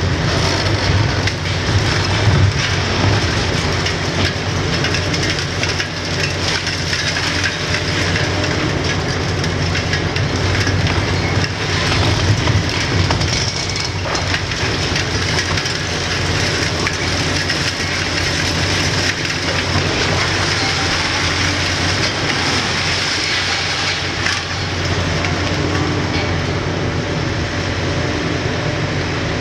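Hitachi Zaxis 870 LCR demolition excavator's six-cylinder Isuzu diesel running under load while its hydraulic crusher crunches through concrete, with rubble cracking and clattering down in a dense, continuous din.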